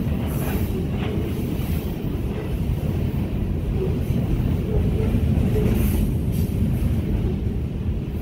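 Freight train of covered hopper cars rolling past below, a steady low rumble of wheels on rails.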